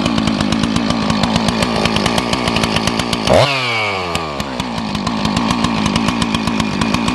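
Rebuilt Husqvarna 254 two-stroke chainsaw running steadily with no bar or chain fitted. About three seconds in it gets one quick blip of the throttle, and the pitch falls back to where it was within about a second.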